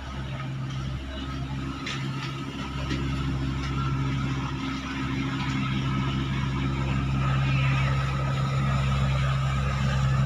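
Engine of a klotok river motorboat running steadily with a low hum, growing gradually louder.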